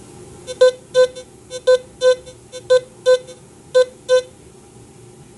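A Teknetics T2+ metal detector gives a run of short beeps, all at the same pitch, as a silver 1876 German 50 pfennig coin is waved over its coil. The beeps stop a little after four seconds. The detector is reading the coin as a high-conductivity target, target ID 82.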